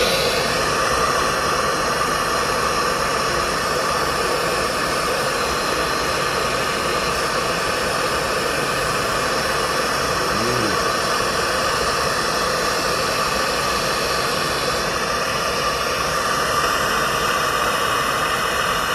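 Juki MO-6914C four-thread direct-drive industrial overlock machine running steadily, stitching the edge of a cotton T-shirt.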